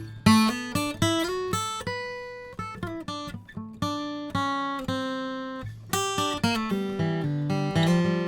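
Martin D12E dreadnought acoustic guitar (sitka spruce top, sapele back and sides) flatpicked: single notes picked one after another and left to ring, a short pause a little past three seconds, then a quicker run of picked notes moving into the lower strings.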